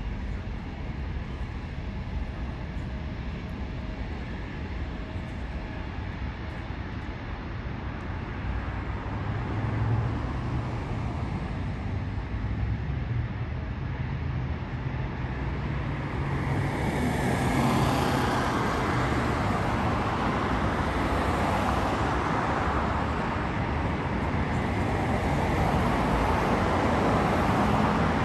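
Jet airliner's engines swelling as the aircraft approaches: a broad rushing roar that rises from about two-thirds of the way through and stays loud. Underneath is a steady low road-traffic rumble.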